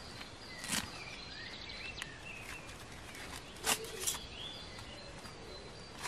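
A few sharp clicks and rustles of hands handling a small flat case or book, over faint forest background with short, high bird chirps several times.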